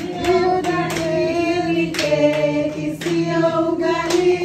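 A group of people singing together in long held notes, with a few hand claps.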